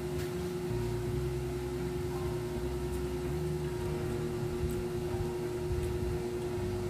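Steady electrical hum with one constant tone over a low rumble, with a few faint clicks scattered through it.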